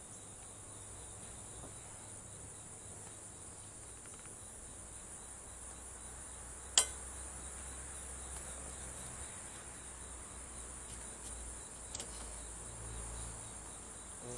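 A steady high-pitched chorus of insects runs underneath. A single sharp click, the loudest sound, comes about seven seconds in, with a fainter one near the end: the plastic wiper blade clip knocking against the metal hook of the wiper arm as the blade is worked loose.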